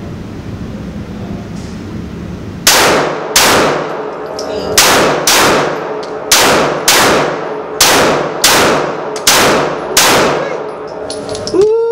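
Semi-automatic pistol fired about ten times in an indoor range, starting about two and a half seconds in, the shots half a second to a second apart. Each shot is a sharp crack with a brief echo off the range walls.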